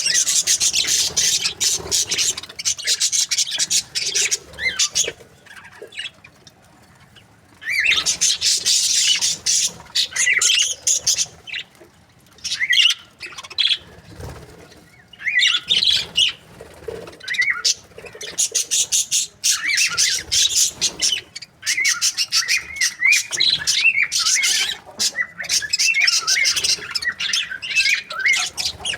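Budgerigars (budgies) chirping and chattering in a rapid, high-pitched stream, in bouts with a couple of short lulls.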